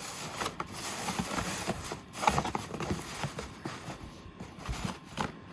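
Paper rustling and crinkling with irregular small crackles as hands spread white paper confetti around inside a paper gift bag.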